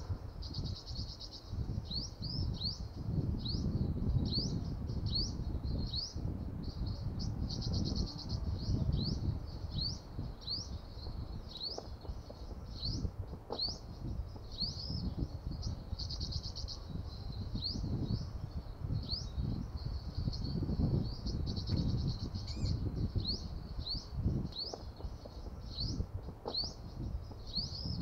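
Olive-backed (yellow-bellied) sunbird calling: a long run of short rising chip notes, about one a second, broken by a few short buzzy trills, over a low rumbling background noise.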